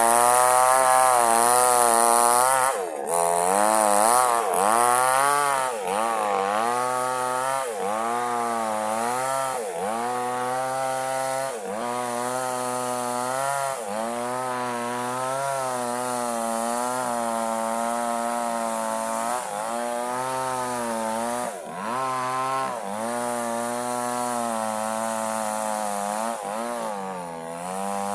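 Chainsaw under load, cutting through a log lengthwise to split it in two. The engine pitch dips and recovers about once a second as the chain bites into the wood. It is loudest in the first few seconds.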